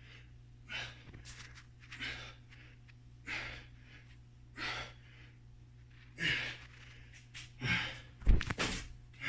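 A man's forceful, sped-up exhalations, one about every 1.3 seconds, each with a rep of a resistance-band chest exercise. Near the end come a few heavier breaths and a loud thump.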